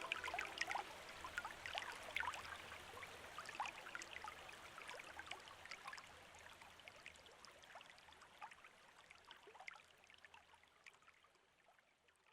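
Water trickling and dripping, a quick patter of small droplet plinks over a light hiss, fading away steadily toward the end.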